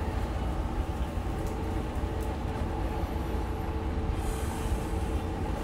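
Steady low rumble of outdoor urban background noise with a faint steady hum; a brief hiss comes in about four seconds in.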